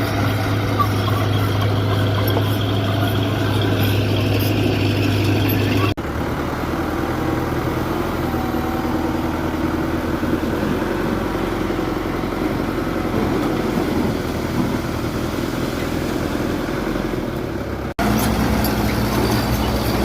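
Diesel engine of heavy earthmoving machinery running steadily, with the engine sound changing abruptly twice, about six seconds in and near the end.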